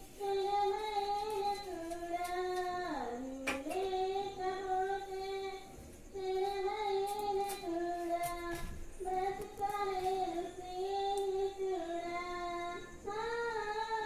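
A child singing a melody unaccompanied, holding notes of a second or two that step up and down, with a quick dip in pitch about three seconds in. A short click sounds about three and a half seconds in.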